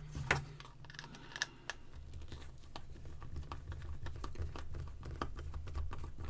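Hand screwdriver turning a small screw out of a plastic LED-driver case, with many light, irregular clicks and ticks from the tool and the case being handled. A low steady hum runs underneath.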